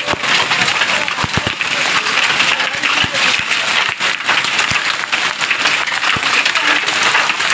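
Heavy hail and rain pelting down onto the ground and roofs: a dense, steady crackling patter of many small impacts.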